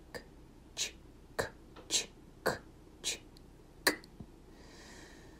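A series of about eight short, sharp clicks, unevenly spaced at roughly two a second.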